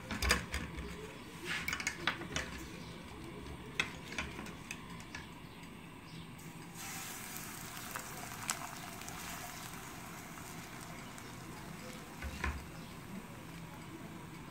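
Pancake batter sizzling in a hot oiled non-stick frying pan as it is ladled in, a steady hiss that sets in about seven seconds in. A few sharp clicks and knocks come in the first seconds and once more near the end.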